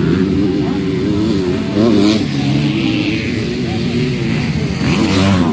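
Motocross bikes racing, their engines revving up and down, with a bike passing close by about two seconds in and another near the end.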